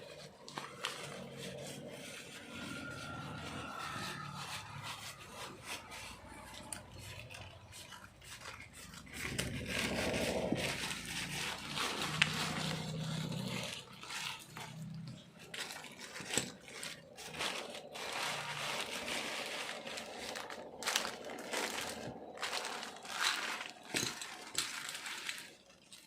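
A parcel's packaging being handled and opened by hand: irregular scraping, crinkling and crackling with many small clicks, busier in the second half.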